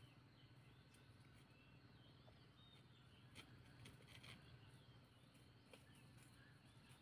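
Near silence: faint outdoor ambience with a few distant small bird chirps and a couple of faint ticks about three and a half and four seconds in.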